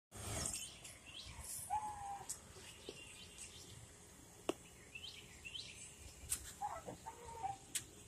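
Small birds chirping: short high chirps scattered throughout, with a couple of lower whistled notes and a few sharp clicks.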